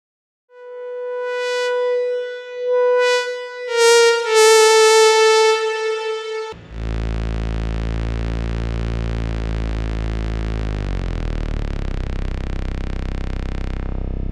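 ASM Hydrasynth desktop synthesizer playing a demo patch: a single sustained lead note swells in and is re-sounded a few times, slipping slightly lower in pitch. About halfway through it switches abruptly to a dense, buzzy low drone whose overtones sweep downward.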